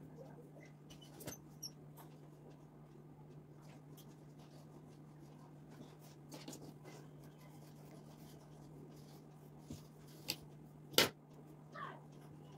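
Quiet room tone with a steady low hum, scattered faint clicks, and a short sharp sound about eleven seconds in, followed by a brief falling squeak.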